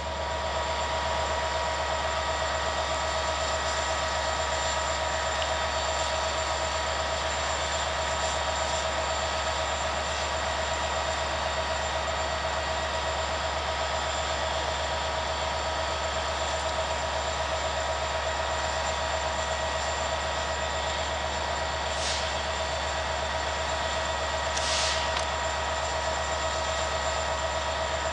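CFR class 64 diesel-electric locomotive idling at a standstill: a steady engine hum with a constant whine over it. Two short hisses come near the end.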